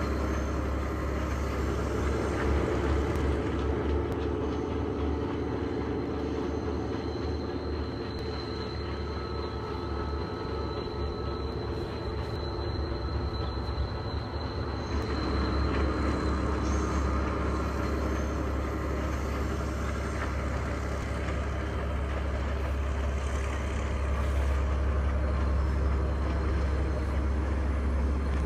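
Class S14 diesel multiple unit train climbing a steep grade, its engines running steadily under load. A thin, high, steady squeal runs for several seconds midway, typical of wheel flanges grinding on a tight curve.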